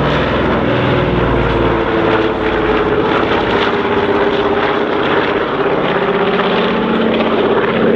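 De Havilland Canada DHC-4 Caribou in a slow flyby: its twin Pratt & Whitney R-2000 radial engines and propellers give a loud, steady drone whose pitch sinks slowly as the aircraft passes.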